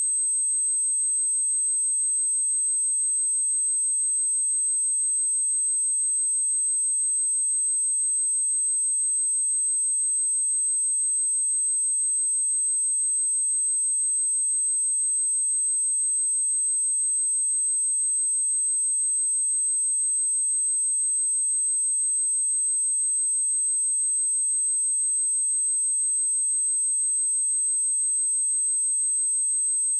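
A steady, high-pitched 8251 Hz sine-wave test tone, one pure pitch held at a constant level.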